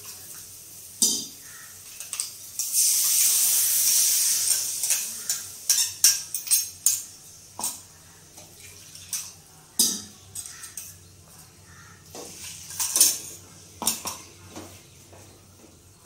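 Water poured into a hot metal kadai of fried masala, hissing loudly for about two seconds, then a wooden spatula knocking and scraping against the pan as the curry-leaf paste is stirred into the liquid. A sharp knock comes about a second in.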